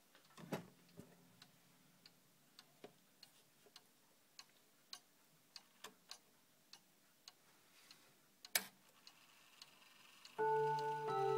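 ODO chiming clock ticking faintly, about two ticks a second, with one louder click about three seconds before the end. In the last second its hammers start striking the chime rods, ringing several notes at once.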